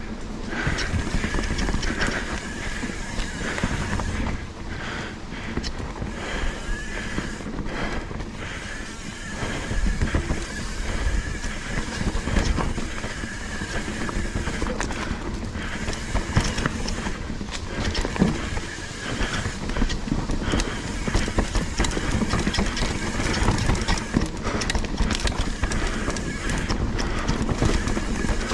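Specialized Enduro mountain bike rolling over a wet dirt trail: a steady rumble from tyres and wind, with irregular rattling and knocks from the frame and chain as it rides over roots and rocks.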